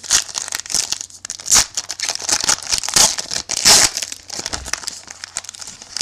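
Foil-wrapped trading-card pack torn open and crumpled by hand: a dense run of irregular crinkling and crackling, loudest in the middle.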